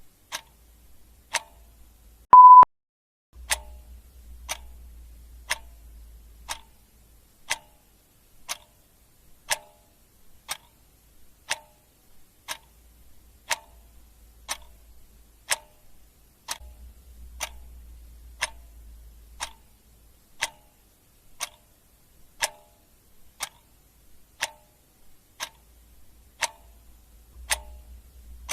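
Clock ticking sound effect, one sharp tick about every second, with a single short, loud beep about two and a half seconds in.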